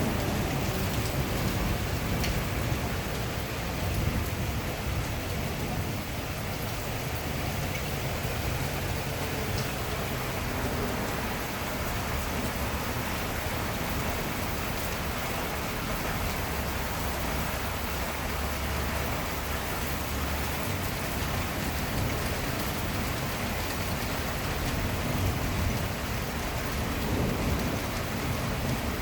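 Hard rain falling steadily in strong wind, an unbroken hiss with a deep rumble underneath.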